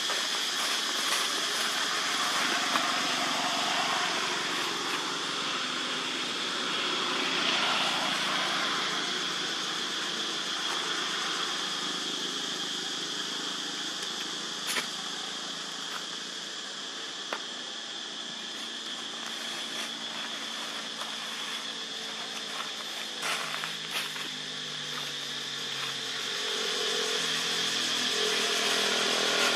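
Outdoor ambience: a steady high-pitched hiss, with a motorbike on the road growing louder near the end.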